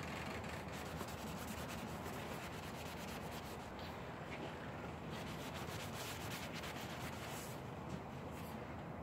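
A cloth rag rubbing over a painted concrete sculpture, polishing it: a steady run of quick rubbing strokes over a low hum.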